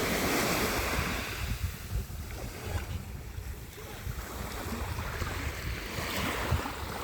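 Mediterranean Sea waves washing onto the shore, with wind buffeting the microphone in a low rumble. The wash is loudest at the start and fades, and another wave swells up about six seconds in.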